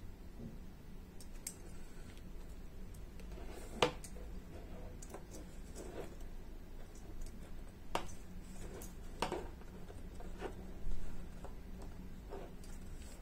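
Light, scattered clicks and taps of a metal puzzle model's steel parts knocking together as it is handled, five or six over the stretch, over a faint steady hum.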